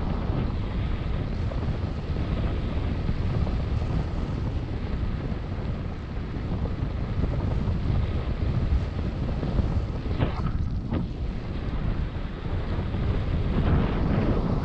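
Rushing wind on the microphone of a camera carried on a paraglider in flight: a steady low rumble, swelling in gusts about ten seconds in and again near the end.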